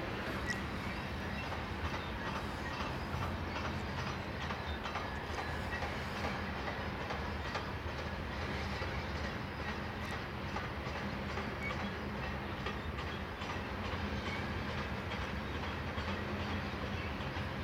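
Canadian Pacific grain train rolling slowly past, its covered hopper cars' wheels clicking over rail joints in an irregular clickety-clack. A steady low drone from the departing diesel locomotives runs underneath.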